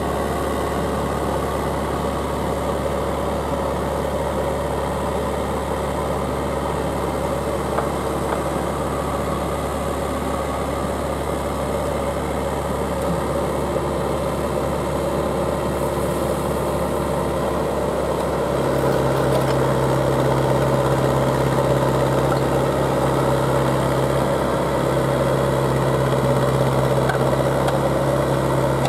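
Engine of a small track-mounted auger drill rig running steadily. About two-thirds of the way through, the sound gets a little louder and a deeper steady hum joins in.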